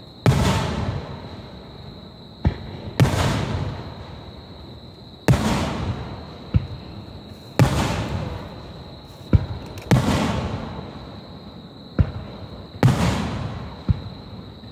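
Aerial firework shells bursting overhead: six big booms, one every two to three seconds, each trailing off in a long rolling echo, with sharper single cracks between them.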